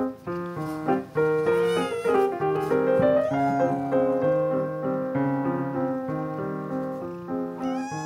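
Gentle piano music, with a cat meowing over it twice: once about two seconds in and again near the end.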